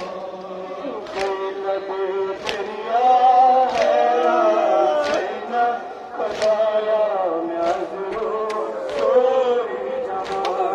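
A crowd of male mourners chanting a nouha, a Shia lament for Ashura, together in a slow melody. A sharp chest-beating slap (matam) lands in time with it roughly every second and a quarter.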